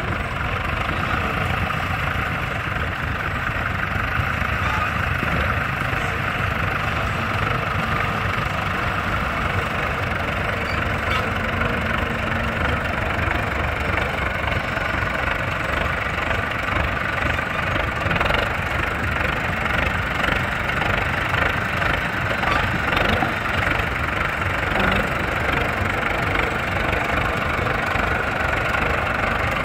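Zetor Super 50 tractor's four-cylinder diesel engine running steadily at idle speed.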